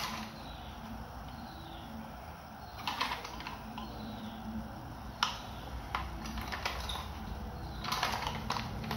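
Light plastic clicks and taps from a toy helicopter being handled and turned over in gloved hands: a few separate clicks, with a cluster near the end.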